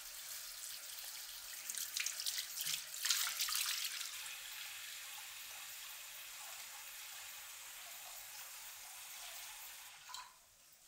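Water running from a mixer tap into a stone basin, with louder splashing about two to four seconds in as hands wash in the stream. The flow stops about ten seconds in.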